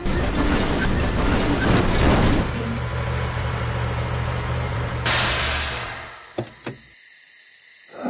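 Lorry engine rumbling as the lorry drives past, settling to a steady low hum. A short hiss comes about five seconds in, then two clicks, and the sound drops away near the end.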